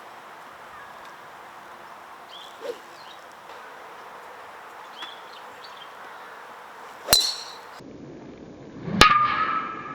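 Golf driver striking the ball: a sharp metallic click about seven seconds in, then a second, louder strike about two seconds later with a ringing tone that dies away. A few short bird chirps sound before them.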